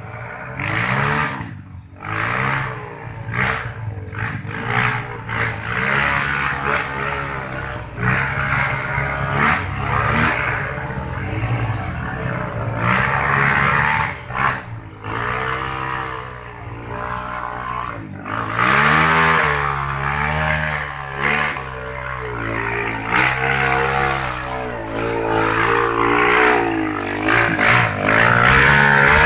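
Motorcycle engines working hard up a steep slope, their pitch rising and falling again and again as the riders rev and change throttle.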